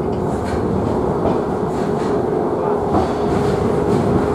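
Sakamoto Cable funicular car running downhill through a brick tunnel: a steady rumble of wheels on the rails with a steady hum and a few light clicks.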